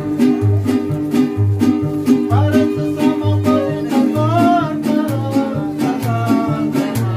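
A Mexican-style string ensemble playing live: strummed guitars and a vihuela over plucked guitarrón bass notes on an even beat. A singer comes in with a melodic line about two seconds in.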